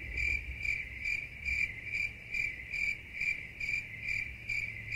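Cricket chirping sound effect: one even, high chirp repeating about twice a second, cut in and out abruptly as an edited-in gag.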